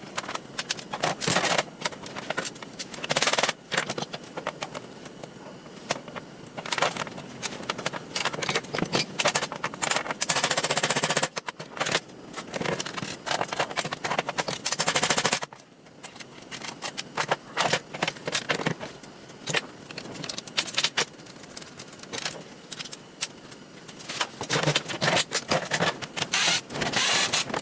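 Metal parts of a garage door opener being taken apart with tools: scattered clicks, knocks and clatter, broken by several runs of rapid rattling lasting a second or two, the longest about ten and fifteen seconds in.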